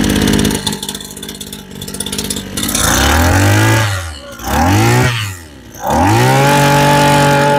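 Mitsubishi TL26 26cc two-stroke brush cutter engine on a test run, idling and then revved three times from about three seconds in, each rise in pitch falling back, the third held for over a second.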